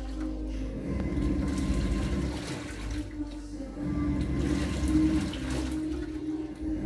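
Panasonic top-loading washing machine on its delicate cycle: water sloshing and churning as the clothes are agitated, over a steady motor hum. The churning comes in strokes, with a quieter lull about two and a half seconds in.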